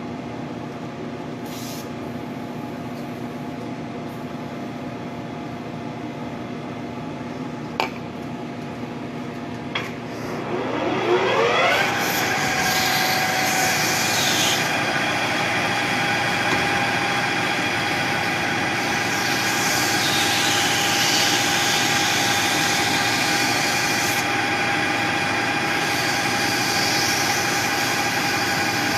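Small metal lathe running steadily, with a single knock about eight seconds in. About ten seconds in the motor's whine rises in pitch over a couple of seconds as the spindle speeds up, then holds steady at the higher speed, with a high hiss swelling and fading three times over it.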